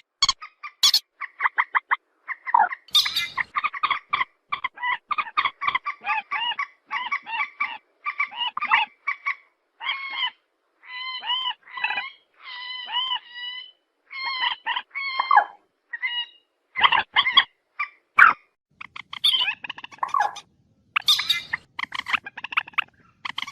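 A trích ré, a rail, calling in a fast run of short, harsh, repeated notes, several a second. The notes turn into spaced, curved calls partway through, then speed up again.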